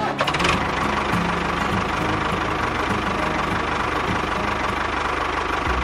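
Tractor engine running steadily with a fast, even low chugging.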